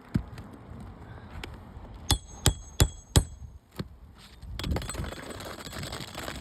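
Hammer striking a metal roofing pry tool, four quick ringing blows about a third of a second apart, with a couple of lighter knocks before and after.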